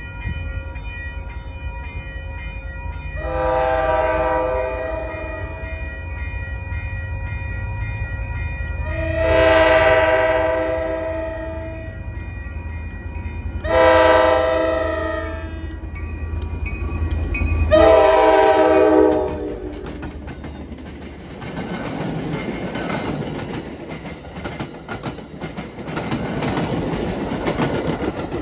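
Approaching MBTA commuter train's locomotive horn sounding the grade-crossing signal: two long blasts, a short one and a final long one, over the diesel's low rumble. The train then rolls past close by with rumbling wheels and clickety-clack over the rail joints.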